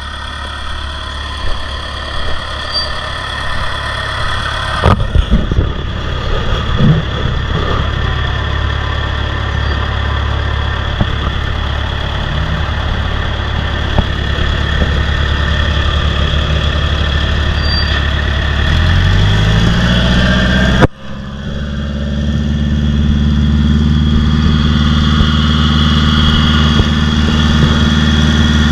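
Heavy engine of construction machinery running steadily, with a few metal clanks in the first several seconds. About two-thirds of the way through, its speed rises and it holds at the higher speed.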